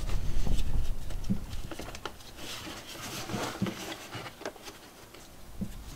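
Hands handling and fitting a small plastic vent fan and rubber gasket over a floor vent grille: scuffing and rubbing, louder in the first second or so, then scattered light clicks and taps.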